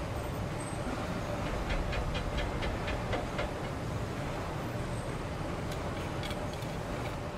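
Steady low mechanical rumble with a quick run of light ticks, about six a second, starting about two seconds in, and a few more ticks near the end.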